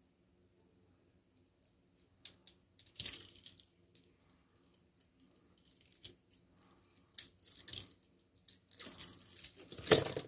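Steel handcuffs and their chains clinking and jangling on the wrists as the cuffs are worked off. There are scattered sharp clicks at first, then a louder, denser jangle near the end.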